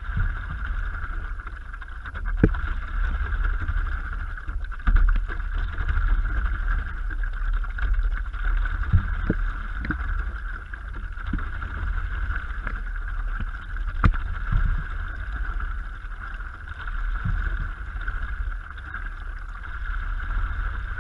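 A stand-up paddleboard being paddled: paddle strokes in the water, with a low rumble of water and wind against the board-mounted camera and a few sharp knocks, the clearest about two and a half seconds in and again near the middle.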